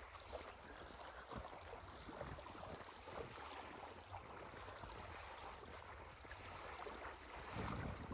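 Wind buffeting the microphone with a low rumble over a soft steady wash of small lake waves on the shore; the wind rumble swells near the end.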